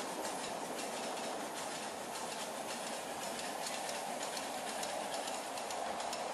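Ride-on miniature railway train rolling along its track, its wheels clicking steadily over the rails.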